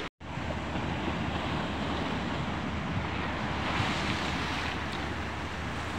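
Sea waves washing on a rocky shore, with wind rumbling on the microphone. The sound drops out for a moment right at the start.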